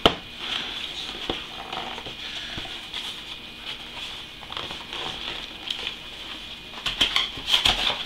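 Cardboard graphics-card box being handled as its cover is lifted off the foam-lined tray: soft rubbing and tapping of card, with a sharp click at the start and a flurry of rustles and clicks near the end.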